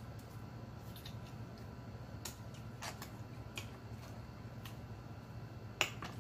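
Close-miked eating sounds: scattered wet mouth clicks and lip smacks as a man chews shrimp, irregular, with the loudest one near the end, over a steady low hum.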